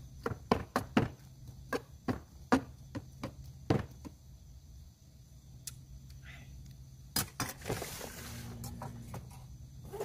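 Knife chopping greens inside a stainless steel bowl: quick, irregular sharp knocks for about the first four seconds, then they stop. A short rustle and clatter about seven seconds in.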